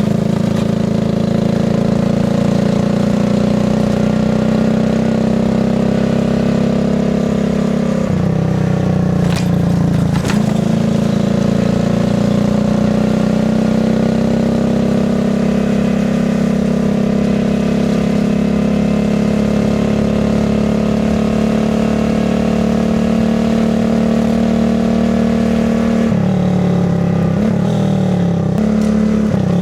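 Alpha moped's small single-cylinder four-stroke engine running under way at a fairly steady speed. The note breaks and changes briefly about eight to ten seconds in, and again near the end, as with a gear change or throttle change.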